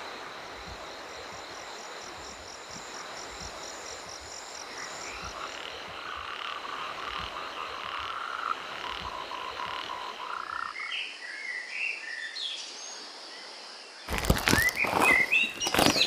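Frogs croaking in a steady evening chorus, followed by a few bird chirps. About two seconds before the end there are loud rustling and knocking sounds as a woven mat is handled.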